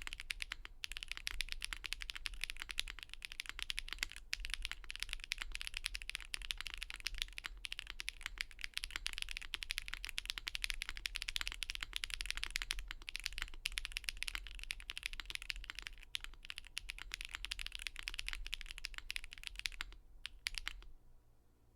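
Fast, continuous typing on a Monokei Kei v2 mechanical keyboard with Gateron Raw switches (springs lubed), a full polycarbonate plate on a gasket mount, and GMK keycaps. The keystrokes come in a dense, rapid clatter that thins to a few last strokes and stops near the end.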